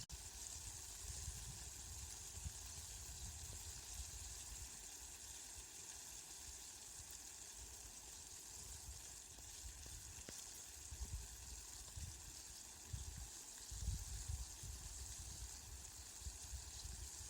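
Steady rain falling, an even hiss, with uneven low rumbles swelling underneath, strongest about two-thirds of the way in.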